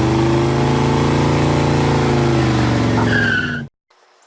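Car engine running steadily, with a short tire squeal about three seconds in, then cut off abruptly, like an edited-in car sound effect.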